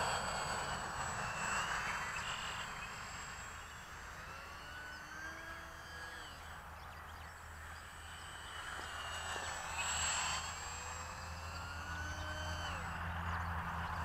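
Faint, distant whine of the small electric motor and propeller of an E-flite UMX Pitts RC biplane, its pitch sweeping up and down again and again as the plane manoeuvres.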